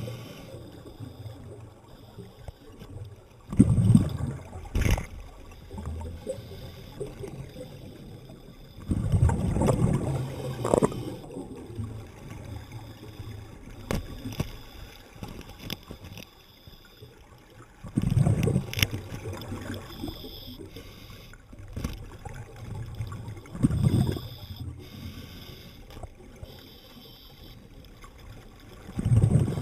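Underwater recording of a scuba diver's breathing: exhaled bubbles from the regulator rush and gurgle in bursts of a second or two every several seconds, with a few sharp clicks between them.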